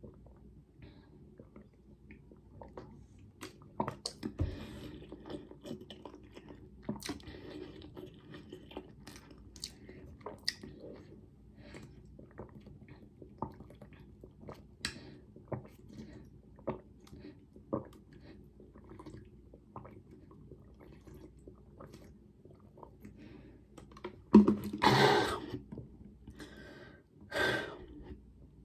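A person drinking water in gulps from a plastic bottle, with small scattered swallowing and bottle-crinkling clicks. Near the end, two louder bursts of sound, gasps for breath.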